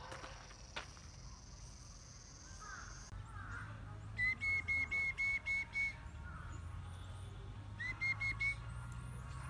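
A bird calling: a run of seven short, high whistled notes, about four a second, then three more near the end.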